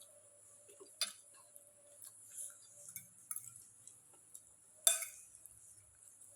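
Cutlery clinking against a dish while eating, with small ticks between, a sharper clink about a second in and the loudest one about five seconds in.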